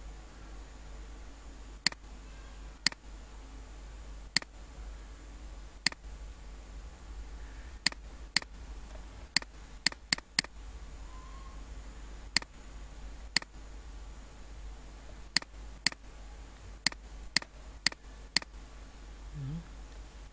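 Computer mouse button clicking: about eighteen sharp single clicks at irregular spacing, a few in quick succession around ten seconds in, over a steady low electrical hum.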